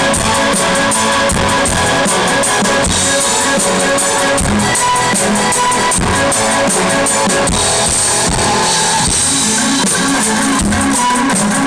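Rock band playing loud through a PA: drum kit and guitar.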